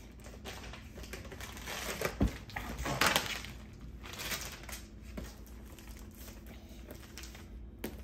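Clear plastic protective wrap being peeled off and crumpled in the hands, crinkling in a few bursts, the loudest about three seconds in.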